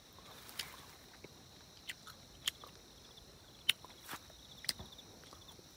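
Footsteps on a path through dry brush: scattered, irregular sharp crunches and clicks, over a faint steady high insect drone.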